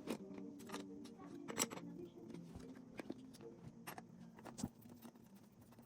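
Irregular sharp clicks and taps, the loudest about one and a half seconds in, over faint background music.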